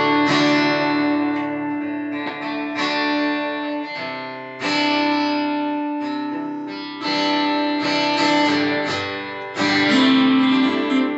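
Two acoustic guitars playing slow chords together, each chord strummed and left to ring, with a new chord struck every two to three seconds.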